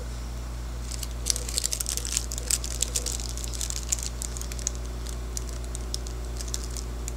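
Food wrapper crinkling as it is handled and opened by hand, a dense run of irregular sharp crackles starting about a second in, over a steady low hum.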